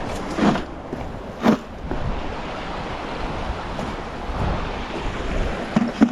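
Steady rushing noise of creek water with wind on the microphone, broken by three short louder bursts: about half a second in, about a second and a half in, and near the end.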